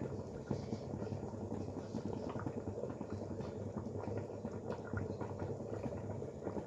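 Pot of gajar ka halwa (grated carrots cooking in milk) bubbling and simmering, with many small irregular pops over a steady low hum.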